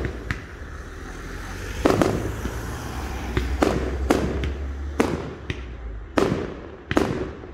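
Fireworks bursting overhead in an irregular series of sharp bangs, about eight in seven seconds, each trailing off briefly, over a low steady rumble.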